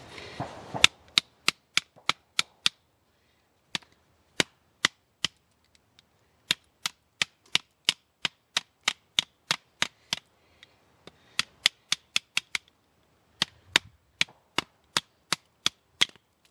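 A wooden baton striking a Swiss Army Hiker knife's folding blade, driving it through a nearly 2-inch round of hard maple. Sharp cracks come about two to three a second, in runs with short pauses between.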